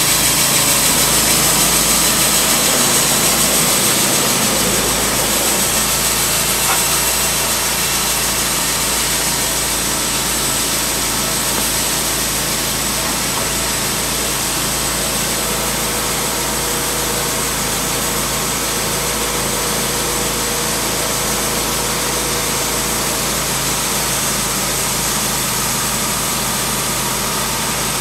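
Timberking B-20 portable band sawmill's engine running steadily, a little louder for the first several seconds and then settling to an even level.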